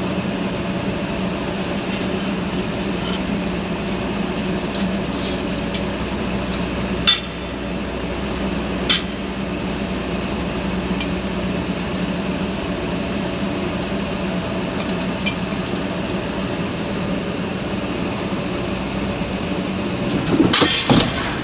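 A steady mechanical hum runs throughout, with a few sharp clinks, two louder ones about seven and nine seconds in, and a short burst of clattering near the end.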